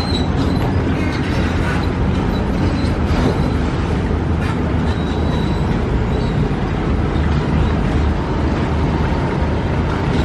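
A river passenger boat's engine running with a steady low rumble, under a wash of even noise.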